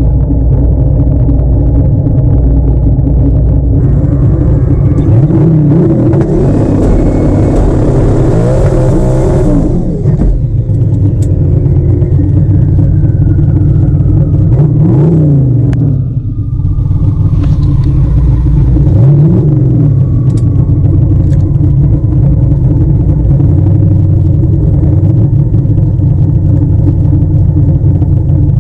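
Twin-turbocharged car engine running loud, revving up for several seconds and dropping sharply about ten seconds in. A thin high whine then falls slowly in pitch over several seconds. More revs rise and fall after that.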